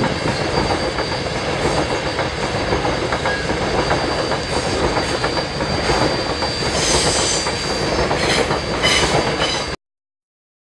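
Coal train hopper wagons rolling past on the adjacent track: a steady rumble and clatter of wheels over the rails with a thin high squeal over it, brighter about seven and nine seconds in. The sound cuts off suddenly near the end.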